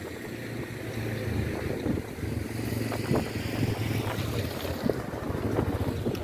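Aircraft on landing approach over the sea: a low, steady engine drone that grows slightly louder as it nears, with wind buffeting the microphone.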